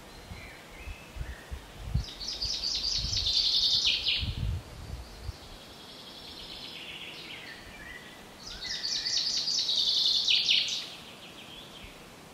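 A songbird singing two songs, each a quick run of high notes about two to three seconds long that ends in a downward flourish. Fainter bird calls come between the songs, and there are low bumps in the first few seconds.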